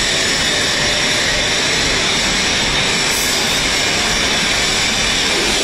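Rear-loading compression garbage truck running its compactor, with the engine and hydraulic system making a steady, loud rushing noise.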